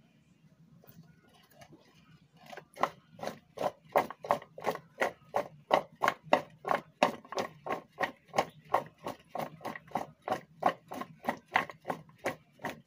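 Raw potato sticks dusted with salt and flour being tossed in a glass bowl: a rhythmic clatter of potatoes against the glass, about four strokes a second, starting about two and a half seconds in.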